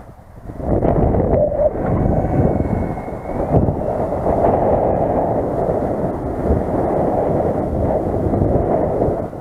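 Wind buffeting the microphone: a heavy, gusting rumble that drops briefly at the start, then stays loud and steady.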